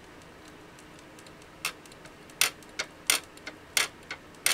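Soldering iron making sharp, irregular ticks, about two a second, starting about a second and a half in: a weird ticking that doesn't sound healthy. The owner puts it down to the iron not sitting level.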